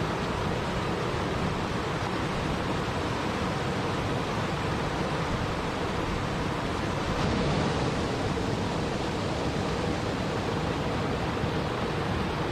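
Waterfall rushing: a steady, even wash of falling water, swelling slightly about seven seconds in.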